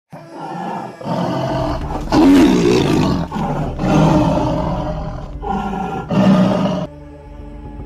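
Tiger roaring: a run of about six long, rough roars one after another, cutting off suddenly near the end.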